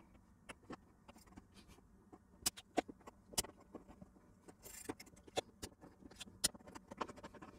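Irregular small clicks and taps of a desoldering pump's plastic tip and a soldering iron working over the solder joints of a TV modulator board in its tinned-steel can, with a brief hiss near the middle. The solder running all around the board is being cleared to free it from the can.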